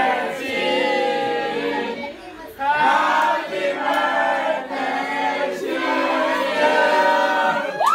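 A group of voices singing together, with a brief break about two seconds in.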